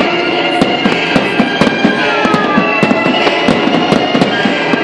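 Fireworks bursting and crackling in quick, irregular succession, several reports a second, over steady music.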